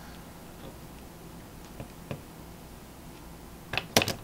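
Small metal XLR connector parts being handled: a few faint clicks, then a quick cluster of sharper clicks near the end as the pin insert is taken out of a bench vise.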